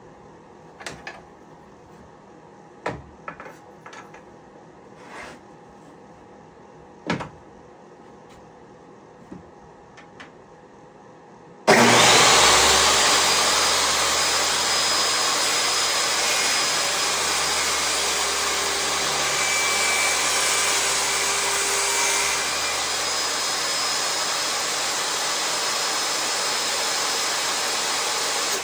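Scattered knocks and clicks of wood and tools being handled, then about twelve seconds in a table saw with a shop vacuum for dust collection switches on abruptly and runs loud and steady.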